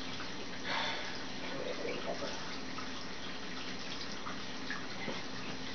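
Steady trickle of running water over a low steady hum, with a few faint knocks and a brief rustle about a second in.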